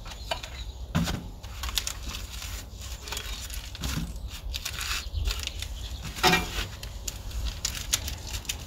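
Packaging rustling and tearing as the steel stove parts are unwrapped and handled, with scattered light clicks and knocks and a louder sound about six seconds in, over a steady low rumble.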